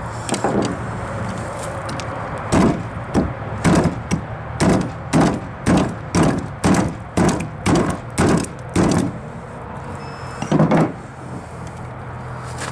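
Hatchet striking the back of a knife blade to drive it through a snapping turtle's shell and bone at the tail: a couple of knocks, then a run of about a dozen sharp knocks at roughly two a second, and one more a little later.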